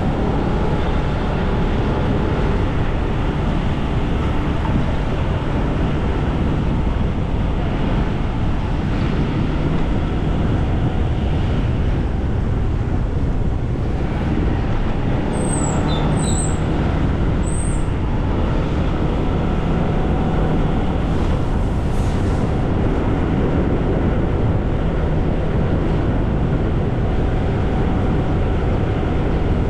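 Steady noise of a moving vehicle on the road, a continuous rumble and hum with no pauses. About halfway through there are a few brief high chirps.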